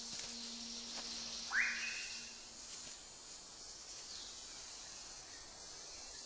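Rainforest ambience: a steady high hiss of insects, with one bird call about a second and a half in, a quick rising note held briefly.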